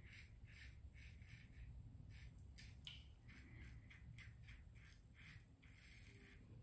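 Wilkinson Classic plastic safety razor scraping through lathered five-day stubble in a run of short, quick strokes, faint and scratchy.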